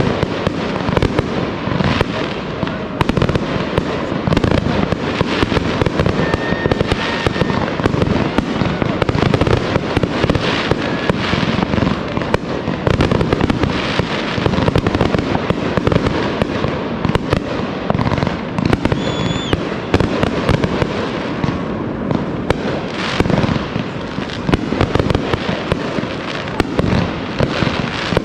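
Fireworks going off in rapid succession: a dense, continuous run of bangs and crackles with no break.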